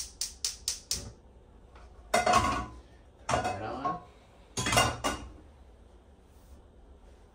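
Cookware being handled on a gas stovetop: a quick run of sharp metal clicks, then three louder clatters of pots and pans being moved and knocked.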